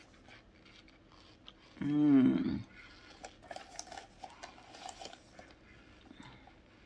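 A person chewing a mouthful of cornstarch, with small crunchy clicks and soft mouth sounds. About two seconds in comes one short hummed "mmm" that falls in pitch.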